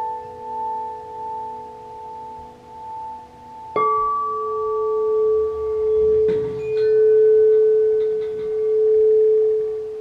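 Quartz crystal singing bowls ringing with a wavering, pulsing hum. A bowl is struck with a mallet about four seconds in, adding a new, brighter tone, and touched again about six seconds in, after which its deep hum swells and eases twice.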